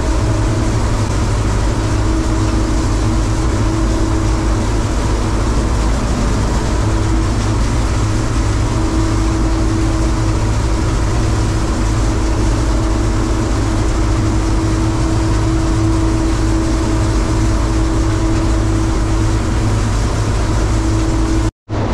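Diesel engine of heavy farm harvest machinery running steadily under load, a constant low rumble with a steady hum over it. The sound drops out for a split second near the end.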